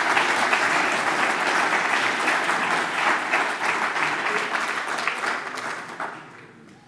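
An audience applauding, many hands clapping at once. The clapping dies away near the end.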